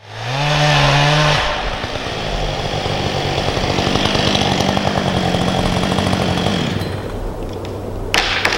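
Chainsaw running at full throttle in a cut, its pitch holding high, then dropping back to idle about seven seconds in. Near the end comes a sharp crack of wood as the tree being felled starts to break at the hinge.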